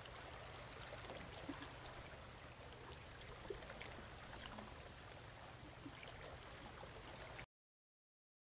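Near silence: faint outdoor hiss with a few soft, scattered clinks of a spoon against a metal cup during eating. The sound drops out completely about a second before the end.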